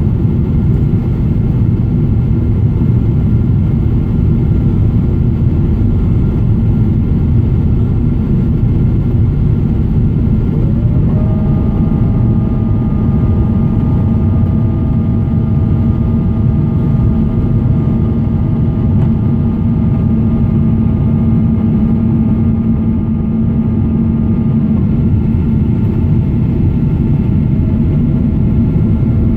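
Cabin noise of a Boeing 777 airliner climbing after takeoff, heard from a window seat: a steady, loud low roar of engines and airflow. About ten seconds in, a whine with overtones rises briefly and then holds steady over the roar.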